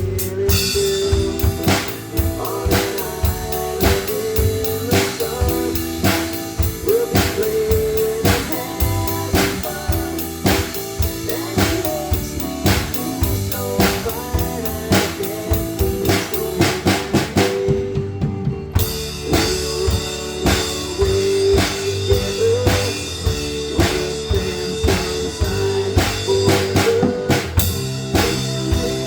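Drum kit played along to a recorded pop-rock song: a steady beat on kick drum, snare and cymbals over the band's sustained chords. The cymbals drop out for about a second a little past halfway, then the beat carries on.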